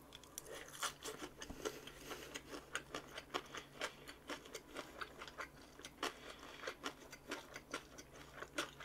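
A person chewing food close to the microphone: a steady, irregular run of small clicks and crunches, several a second.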